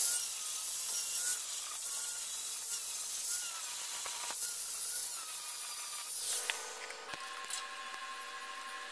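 Angle grinder grinding on steel square tubing, its motor whine wavering as it is pressed on and eased off the metal. It stops about six seconds in, and a quieter steady hum follows.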